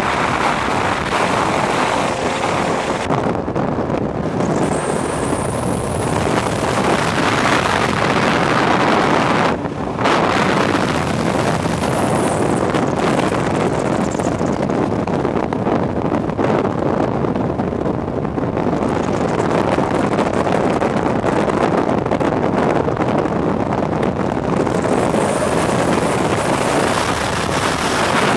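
Skeeter bass boat running at speed: wind rushing over the microphone mixed with the hull's water noise and the outboard's run, steady throughout with one brief drop about ten seconds in.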